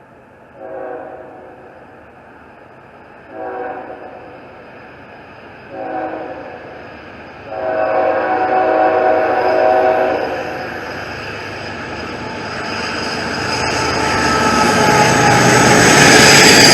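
Freight locomotive horn sounding four blasts in a long-long-short-long pattern, the grade-crossing signal, the last blast held the longest. The train's rumble then grows steadily louder as it approaches.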